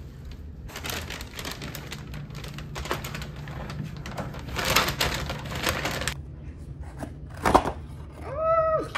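Handling noises over a steady low hum: a door's lever latch clicking, a paper takeout bag crinkling, then a sharp click and a short rising-and-falling squeak as the foil lid of a takeout bowl is pried off near the end.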